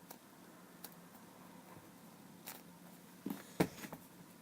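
Quiet handling noises as squishy toys are picked up and shown: a few light clicks and rustles, with a short burst of louder knocks about three and a half seconds in.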